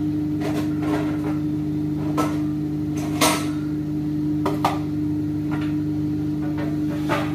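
Plastic food containers, lids and dishes handled and set down: a string of short clicks and clatters, the loudest about three seconds in, over a steady low electrical hum from a kitchen appliance.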